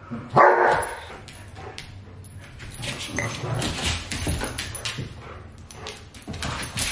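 Two golden retrievers play-fighting, one of them a puppy. One dog makes a single loud vocal outburst about half a second in, followed by scuffling and clicking of paws on a hard floor.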